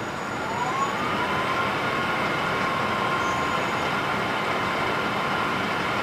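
Sound decoder in a Bachmann HO scale PCC streetcar playing its recorded running sound through the model's small speaker: a steady electric hum with a whine that rises in pitch over the first second, then holds steady.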